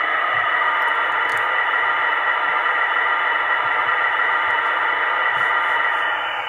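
Sound decoder of a Märklin 39320 H0 model of the DB V 320 diesel locomotive playing its cooling-fan sound for fan pair 1: a steady rushing fan noise with a faint hum in it. It comes through the model's small built-in loudspeaker, which gives it a thin, radio-like tone.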